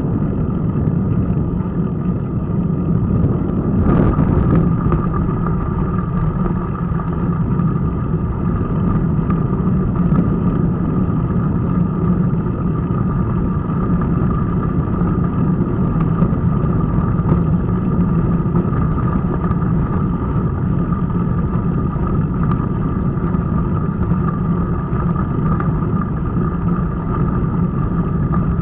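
Steady rumble of riding noise (wind and tyre noise) picked up by a bicycle-mounted action camera while riding, with a sharp knock about four seconds in.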